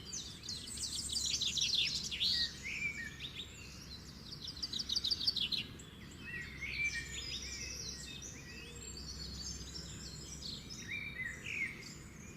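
Songbirds chirping and singing, several calls overlapping, with quick trills about a second in and again around four to five seconds.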